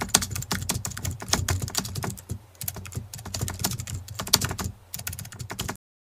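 Typing sound effect: a fast, uneven run of keyboard key clicks that stops suddenly near the end.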